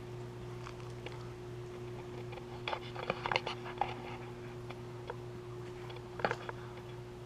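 Light clicks and taps from handling, a cluster about three seconds in and another near the end, over a steady low hum.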